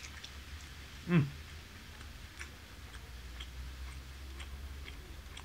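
Faint, scattered light ticks and clicks at a dining table while someone eats, over a steady low hum. About a second in there is a short, louder sound that falls in pitch.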